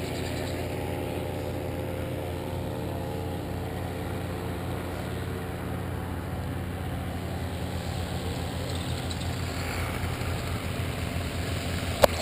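Paramotor engine idling steadily, an even low drone that holds the same pitch throughout, with one sharp click near the end.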